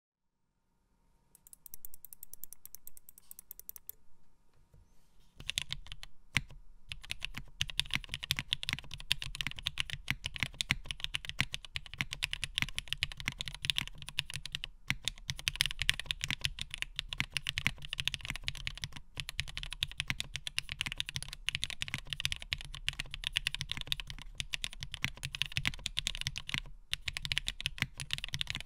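Typing on a TGR x Monokei Tomo custom mechanical keyboard: top-mount aluminium plate, lubed linear frankenswitches (NK Cream stems, Cherry housing tops, Gateron Oil King bottom housings) and a vintage Cherry MX Black on the spacebar. Fast, continuous keystrokes with a smooth, deep bottom-out begin about five seconds in, after a few seconds of softer sound.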